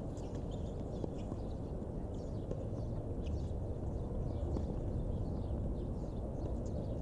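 Outdoor ambience: a steady low rumble with faint, scattered high ticks and chirps over it.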